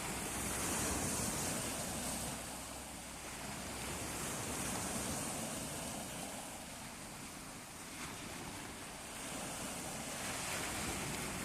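Sea waves washing in, the surf swelling and falling back every few seconds.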